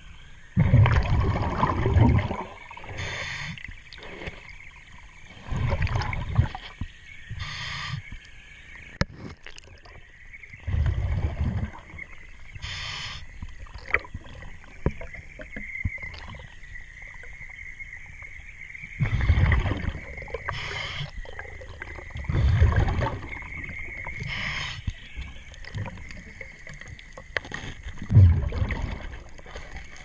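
Underwater diver's breathing through a regulator: a short hiss on each inhale and a low bubbling rumble on each exhale, repeating every few seconds. Between breaths, faint scrubbing of a brush on the boat hull and a faint steady whine.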